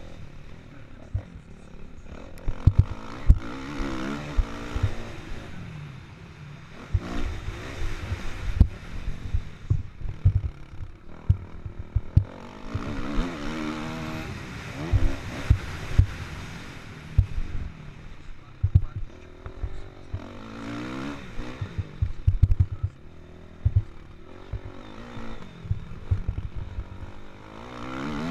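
Kawasaki KX450F's single-cylinder four-stroke engine revving hard and dropping back again and again as the bike is ridden over a motocross track, with frequent low thuds from wind and bumps on the helmet-mounted microphone.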